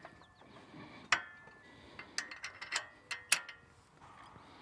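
Steel three-point hitch parts clinking as a pin and bushing are worked into the top link by hand: several sharp metallic clicks with a brief ringing, one about a second in and a quick cluster between two and three and a half seconds.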